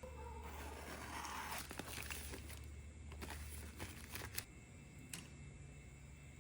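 Plastic packaging of new top-end gaskets being torn open and crinkled, followed by a few small clicks and handling sounds.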